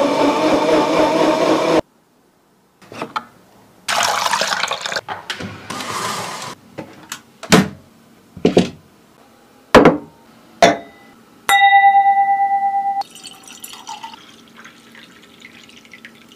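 A Joyoung blender running its automatic cleaning cycle, water swirling in the jar, cut off after about two seconds. After a pause come a rushing noise, four sharp knocks, a steady ringing tone of about a second and a half, and then liquid being poured into a glass.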